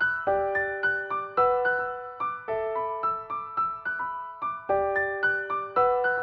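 Background music: a piano-like keyboard playing quick, evenly spaced notes in a short repeating pattern.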